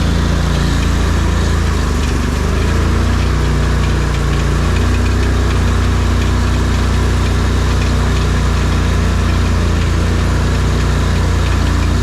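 ARGO amphibious off-road vehicle's engine running steadily under way, its pitch shifting slightly a couple of times.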